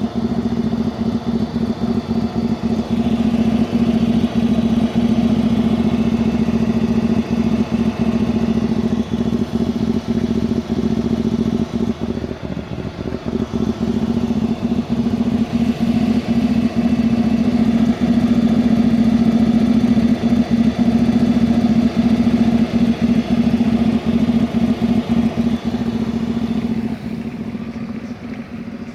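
Inside the cabin of a Volkswagen Passat B5, the steady drone of the running car with irregular knocking sounds coming through again and again. The owner cannot tell where the knocks come from.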